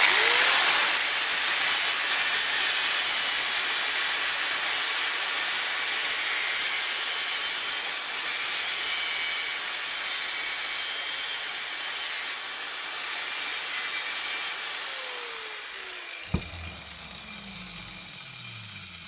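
Handheld angle grinder spinning up and grinding the tip of a steel nail to a point, a steady high whine over harsh grinding noise. About sixteen seconds in it is switched off with a click and winds down in a falling hum.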